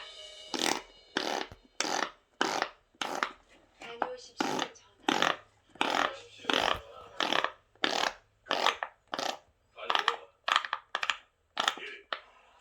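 Large silicone POP IT fidget toy having its bubbles pressed one after another, each giving a short pop, at a steady pace of about two a second.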